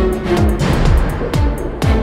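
Background music with a steady beat: driving electronic drums whose low hits drop in pitch, about two a second, over held notes.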